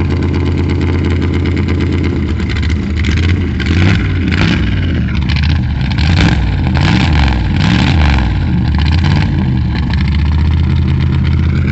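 Car engine, just cold-started in sub-zero weather, idling, then revved up and down several times before settling back to a steady idle while it warms up.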